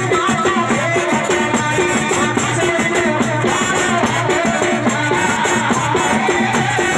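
Loud music: a short melodic phrase with bending notes repeating over and over above fast, dense percussion.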